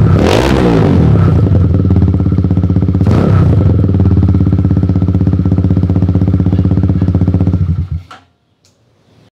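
Motorstar Z200 motorcycle engine idling through its exhaust, with a quick rev blip at the start and another about three seconds in, then switched off about eight seconds in.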